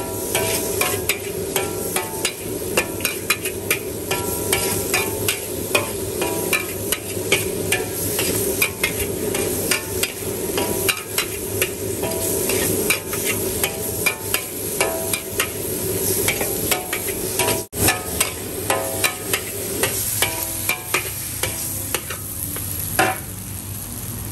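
A metal wok spatula scrapes and clanks rapidly against a wide iron wok as mee goreng noodles are stir-fried. The frying noodles sizzle steadily underneath.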